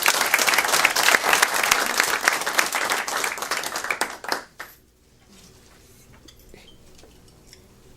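A group of people applauding, the clapping dying away about four and a half seconds in to a quiet room.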